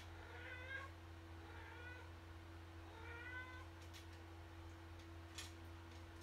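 A cat meowing faintly, three short meows in the first four seconds, over a steady low hum.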